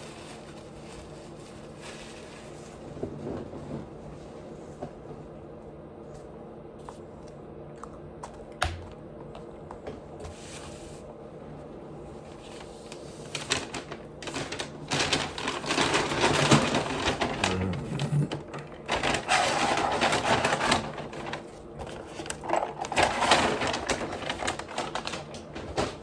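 Close-up chewing and mouth sounds of a person eating: dense, quick wet clicks that start about halfway through and come in loud bursts until near the end, with only a single click before that.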